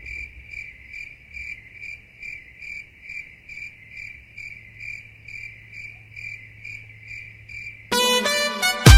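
A cricket chirping in an even rhythm, about two to three high chirps a second, over a faint low hum; loud dance music cuts back in near the end.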